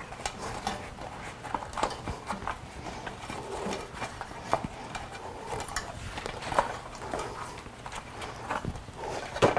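Irregular light taps, clicks and rubbing of a rubber bicycle inner tube being handled and tucked into the tire against the wheel rim.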